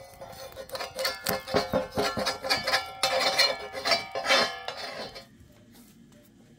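A flat metal spatula scraping and clinking against a domed iron saj griddle over a wood fire, with rapid irregular metal-on-metal strokes. The scraping stops about five seconds in.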